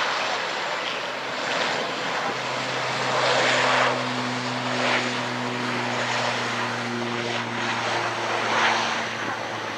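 Boeing 787 Dreamliner jet airliner taxiing, its engines at low taxi power giving a steady rushing hiss that swells and fades. A low steady hum with a few higher steady tones comes in about two seconds in.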